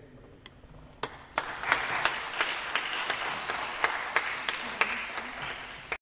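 Audience applauding, starting about a second in with a few scattered claps and then a steady round of clapping.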